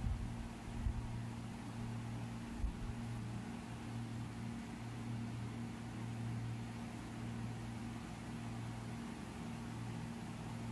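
Steady low mechanical hum over a faint hiss, with a few soft low thumps in the first three seconds.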